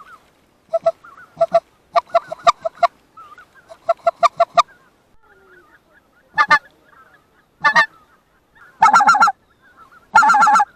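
Hand-blown goose call used to call in flying geese: quick runs of short clucking notes, then several long, loud honks in the second half. Fainter calls of the real geese sound in the gaps.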